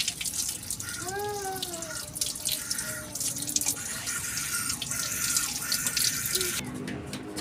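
Water running from a tap and splashing over a bunch of fresh coriander being rinsed by hand, draining into a sink. The splashing stops suddenly near the end.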